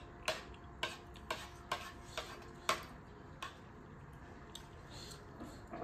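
Metal spoon and fork clinking against ceramic plates: sharp clicks about every half second, each with a brief ring, for the first three seconds or so, then a few fainter ones.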